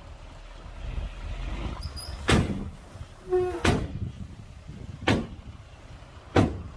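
Heavy earthmoving machinery running with a low rumble, cut by four loud sharp bangs evenly spaced about a second and a half apart, with a brief squeal just before the second bang.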